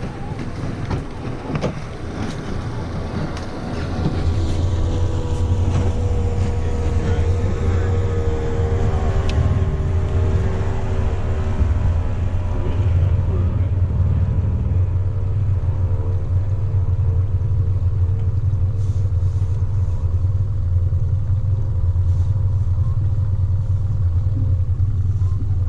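Small outboard motor on the boat running steadily at low speed, a low hum that gets louder about four seconds in. A few sharp clicks come near the start.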